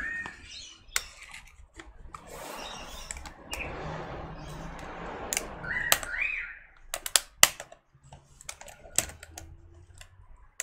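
Plastic laptop parts being worked by hand: scraping and rubbing as the keyboard section is pushed and dragged, then a series of sharp clicks and taps, the loudest about seven and a half seconds in, with a brief squeak near six seconds.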